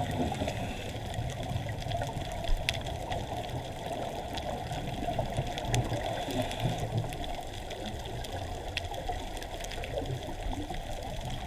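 Underwater sound picked up by a camera moving over a coral reef: a steady muffled rush and rumble of water around the camera, with scattered faint clicks.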